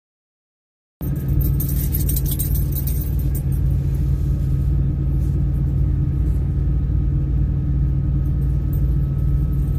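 Steady low rumble of a semi-truck's engine running, heard inside the cab, unchanging throughout. The sound drops out completely for about the first second before the rumble comes back.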